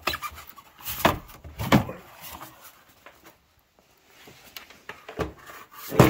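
Plastic air intake duct and air box lid being pulled free of a pickup's engine and carried off: a few knocks and clunks in the first two seconds, a quieter stretch, then a loud knock near the end as the part is set down on the floor.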